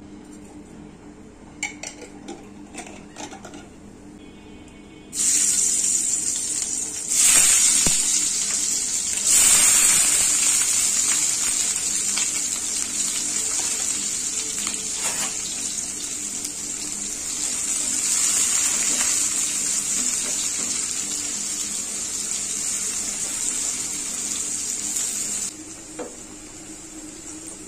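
Sliced onions and green chillies frying in hot oil in a frying pan: a loud, steady sizzle that starts suddenly about five seconds in, after a few light clicks, and cuts off abruptly near the end.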